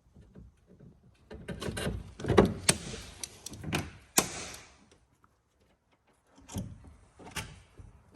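Plastic clicks and knocks from plastic push rivets being pressed in and a plastic fender being handled, coming in a cluster of sharp strikes, a pause, then a few more.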